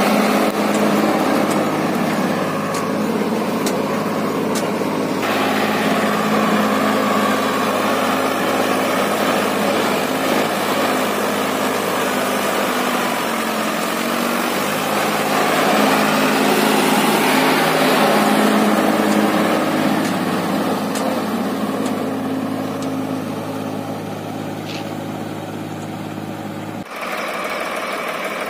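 Eicher 5660's three-cylinder diesel engine running steadily close by. Its note dips briefly in the middle, and the sound changes abruptly near the end.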